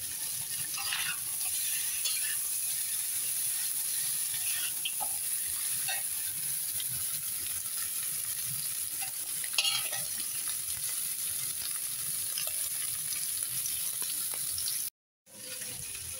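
Pork pieces with tomatoes and onions sizzling in a hot wok, a steady frying hiss, with a spatula scraping and stirring through them every few seconds. The meat is being fried until crisp. The sound cuts out briefly near the end.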